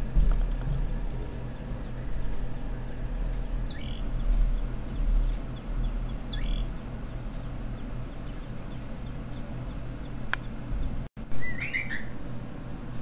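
Recorded bird chirps from a bird video for cats playing through computer speakers: short falling chirps about three times a second over a low rumble. About eleven seconds in, the sound drops out for a moment and a short wavering sound follows.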